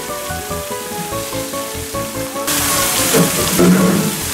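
Background music of short, clear pitched notes over a light steady beat. About halfway through it breaks off abruptly into a louder, even noisy hiss of live ambient sound, with a few low voice-like sounds near the end.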